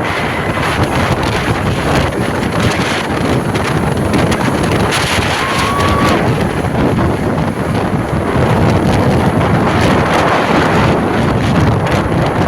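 Heavy wind buffeting the microphone over the running noise of a moving vehicle, with a brief faint high tone about five and a half seconds in.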